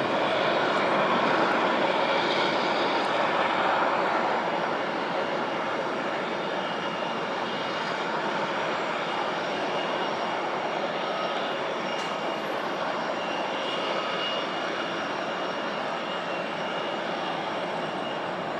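Boeing 787 Dreamliner's Rolls-Royce Trent 1000 turbofans on final approach with gear down: a steady rushing jet drone, a little louder in the first few seconds, with a faint high whine in the second half.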